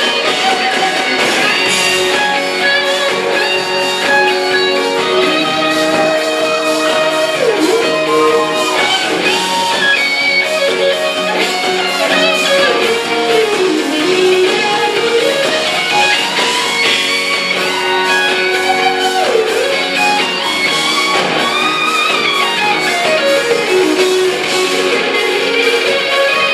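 A live band playing guitar-led music, with a lead line that bends and slides up and down in pitch over sustained chords.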